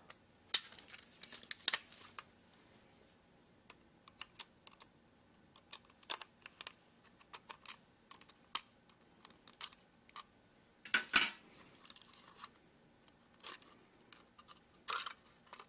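Small, irregular metal clicks and short scrapes of a screwdriver working screws out of a tin-plate toy locomotive body, with two longer scrapes about eleven and fifteen seconds in.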